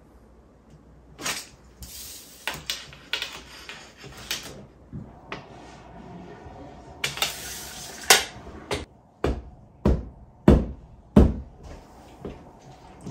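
Clicks, rustles and scrapes of a tape measure and hand tools being worked against a drywall wall, then four sharp knocks in quick succession about two-thirds of the way through.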